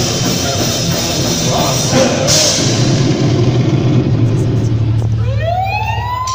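Rock band playing live on electric guitars, bass and drum kit. About five seconds in the full band drops away and a single electric-guitar note slides upward and is held over a low sustained note.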